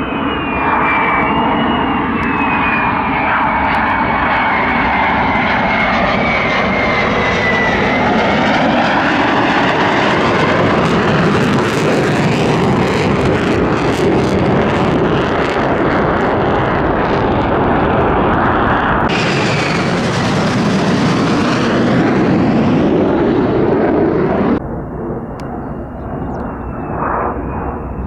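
F-35A fighter's Pratt & Whitney F135 turbofan, loud during a pass: a high whine falls in pitch over the first several seconds under a broad jet roar. About three-quarters of the way through the roar cuts off abruptly, and a fainter, steady jet whine remains.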